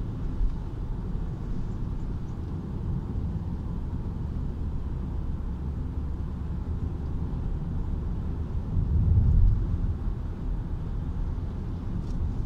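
Steady low road and engine rumble heard inside a moving car's cabin, swelling louder for a moment about nine seconds in.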